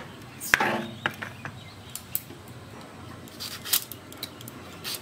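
A cleaver chops through the end of a green plantain onto a plastic cutting board with one sharp knock about half a second in. Scattered light clicks and scrapes follow as the knife works at the plantain's peel against the board.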